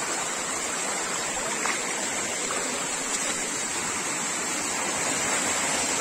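Shallow rocky stream water running over boulders: a steady, even rush.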